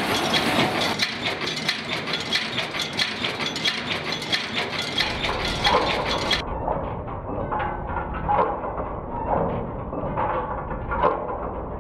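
Multi-station bolt former (cold-heading machine) running, a fast rhythmic mechanical clatter of its forming strokes. About six seconds in the sound turns duller, with heavier knocks repeating every half second or so.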